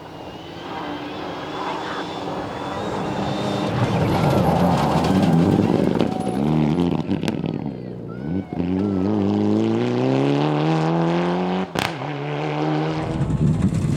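Rally car engine at full attack, growing louder as it approaches. Just past the middle the throttle lifts briefly, then the engine revs up with steadily rising pitch, broken by one sharp crack at a gearshift near the end.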